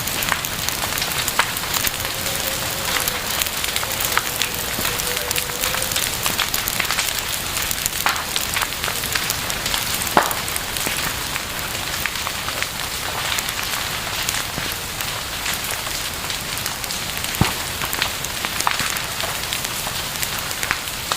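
Campfire burning: steady dense crackling of burning wood, with a couple of sharper pops and a faint wavering whistle in the first few seconds.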